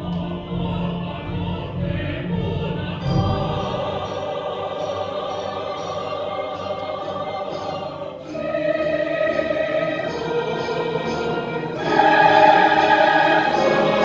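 Large mixed choir singing, sustained held chords with new phrases entering about three and eight seconds in, swelling louder near the end.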